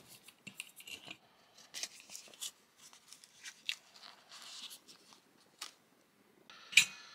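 Small parts and tools being handled on a workbench: scattered light clicks and scrapes, a rustle lasting about a second midway, and a sharper, louder clatter near the end.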